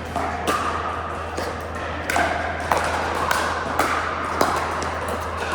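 Pickleball rally: paddles striking the hard plastic ball, about nine sharp pocks in quick succession, roughly one or two a second.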